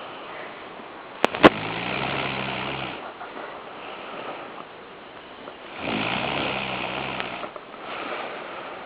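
Snoring: two long snores, each about a second and a half, roughly four seconds apart, with a fainter one near the end. A couple of sharp clicks come just before the first snore.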